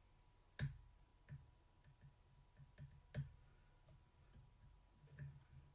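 Faint clicks of a lock pick and tension tool working the pin stack of a Master Lock Pro Series 6835 padlock: two sharper clicks among softer, scattered ticks.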